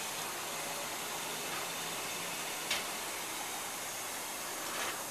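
Steady hiss of a heating tool warming a large yacht propeller as coating is brushed on, with two short ticks, one a little past halfway and one near the end.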